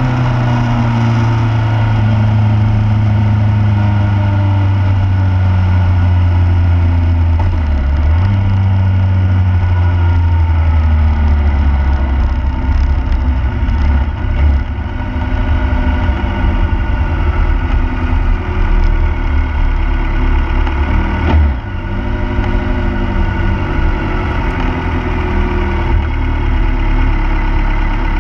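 Motorcycle engine running, heard from the bike it is mounted on, with its pitch falling near the start and shifting a few times as the revs change.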